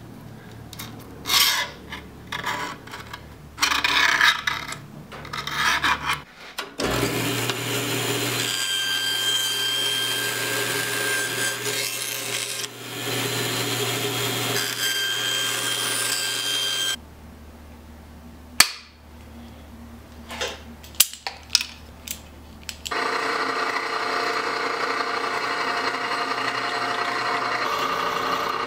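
A steel scribe scratches in short strokes around a template on a black sheet of handle material. Then a bandsaw runs steadily for about ten seconds, cutting the sheet. After a quieter stretch with a few clicks, a drill press runs steadily from about 23 seconds in, drilling into a small block.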